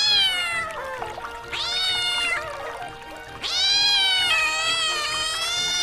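Domestic cat meowing three times: two short meows that fall in pitch, then a long drawn-out one, over soft background music.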